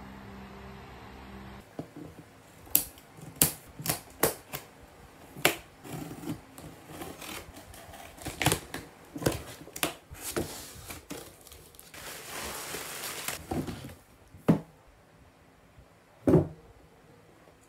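Unboxing sounds: a box cutter and hands working on a taped cardboard shipping box, a run of sharp clicks, taps and knocks, with a longer rasp of packing tape about two-thirds through and two louder knocks on the cardboard near the end. Soft guitar music plays for the first second or so.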